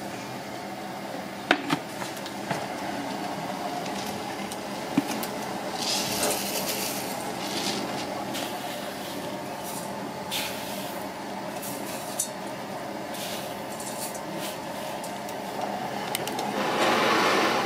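A steel saucepan being handled, with a few sharp clinks and knocks over steady background noise and some short hissing bursts. Near the end a louder hiss sets in as the pan sits on the burner.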